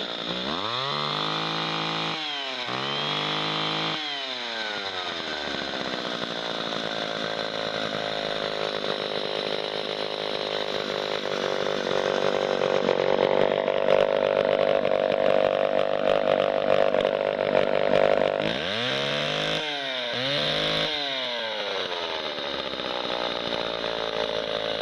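John Deere 50V two-stroke chainsaw running: it is revved up twice in quick succession and falls back to idle, is then held at high speed for several seconds, and is blipped twice more near the end before dropping back to idle.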